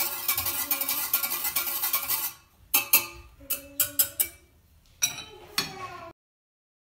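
Wire balloon whisk stirring quickly in a small stainless-steel saucepan, a rapid clatter of wire against metal for about two seconds. Then a few separate ringing taps as the whisk is lifted out, and the sound cuts off abruptly.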